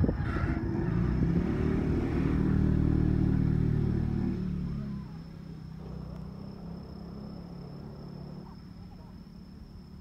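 Electric commuter train running past a level crossing and away, a loud steady low rumble with a hum through it. The rumble drops off sharply about five seconds in, leaving a fainter low hum that fades away.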